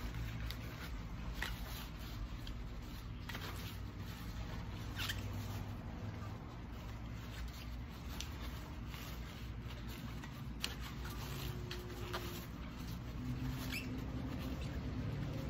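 Faint handling noises: scattered small clicks and short squeaks, roughly one a second, from items being moved and wiped by hand, over a low steady hum.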